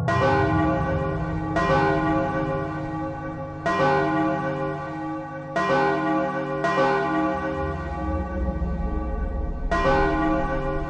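A large bell struck six times at uneven intervals, each strike ringing on with many overtones into the next.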